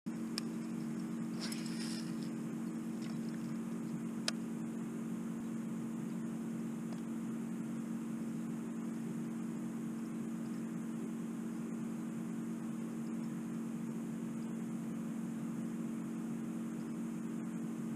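A steady low hum made of two level tones over a faint hiss, with a brief high hiss about one and a half seconds in and a single sharp click a little after four seconds.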